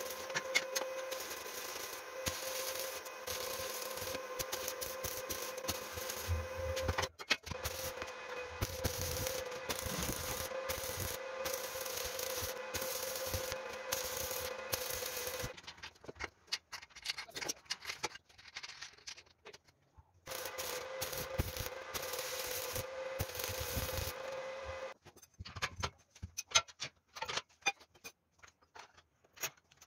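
Stick (arc) welding on a steel tube frame: the steady crackle and sizzle of the electrode arc with a faint steady whine. The arc breaks off about halfway through, starts again and stops near the end. Scattered light metallic clicks and taps follow as pieces of metal are handled.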